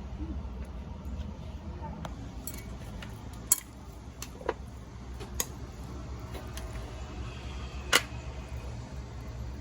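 A few sharp clinks of utensils against dishes, four of them spaced out a second or more apart, over a low steady hum.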